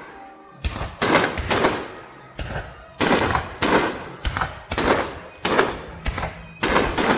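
Starmine fireworks bursting in quick succession: about a dozen sharp bangs, roughly one every half second, each trailing off briefly.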